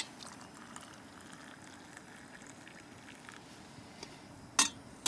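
Hot water poured from a kettle into a cup, a faint steady trickle, with one sharp clunk near the end.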